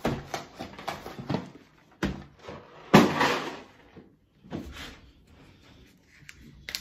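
Cap'n Crunch Berries cereal rattling out of its cardboard box into a glass bowl, with the box rustling and a loud knock about three seconds in. A few small clicks near the end as the plastic cap of a milk jug is handled.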